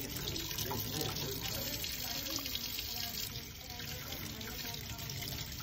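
Tap water running steadily from a faucet into a stainless-steel sink, splashing over the dentures and gloved hands held in the stream.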